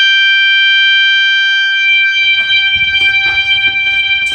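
System Sensor fire alarm horn-strobe sounding a loud continuous steady tone. From about two seconds in, rustling and knocks sound under the tone.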